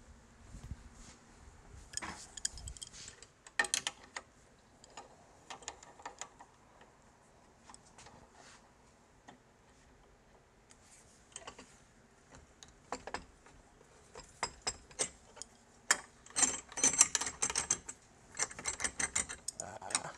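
Scattered clicks, taps and light metallic rattles of hands working the clamp and wing nut on a wooden checkering cradle while a workpiece is mounted, sparse at first and coming thick and fast in the last third.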